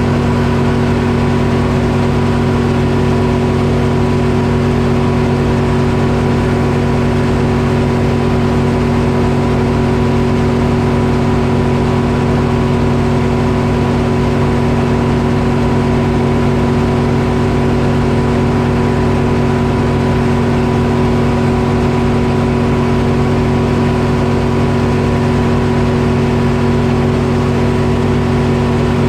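Detroit Diesel engine running steadily at a constant speed, powering a Frick sawmill.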